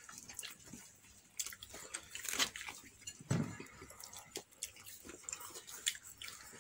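Close-up eating of fried chicken: irregular wet mouth clicks and smacks from chewing and from fingers at the lips.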